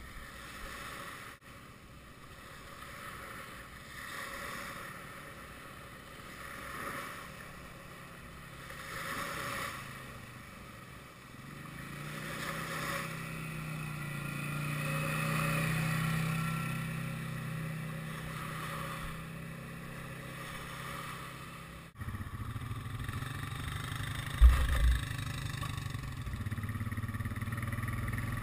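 Small waves washing up the sand in repeated swells, joined by an ATV engine that grows louder as the quad passes close by and then fades. About twenty-two seconds in, the sound changes abruptly to an ATV engine running steadily, heard from on the machine, with one sharp loud knock a couple of seconds later.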